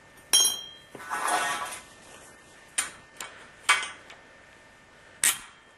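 A length of 3/4-inch copper pipe, its cut-off stub and a tubing cutter clinking on a concrete floor. There is a ringing metallic clink about a third of a second in, a short rattle just after, and then four sharper clicks spread over the next few seconds.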